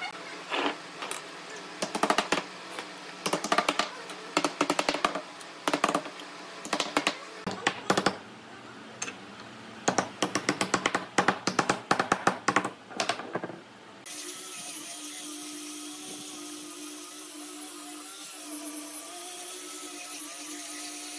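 A small hammer tapping wooden slats into glued mortises in a board, in quick clusters of light taps. About fourteen seconds in, an angle grinder fitted with a sanding disc starts and runs steadily, sanding the wood.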